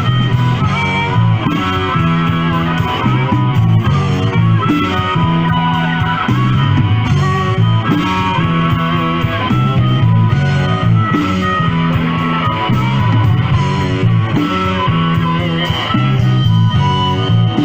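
Blues-rock band playing live: an electric guitar leads over a repeating bass line and drums in an instrumental passage.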